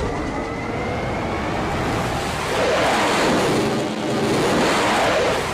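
A steady rushing noise from a cartoon sound track, swelling a little around the middle, with a faint steady whine underneath.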